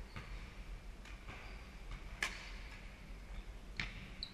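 Badminton rackets striking a shuttlecock in a rally: sharp pops roughly a second and a half apart, the loudest about two seconds in, ringing briefly in the hall. Short high squeaks of sports shoes on the wooden court floor in between.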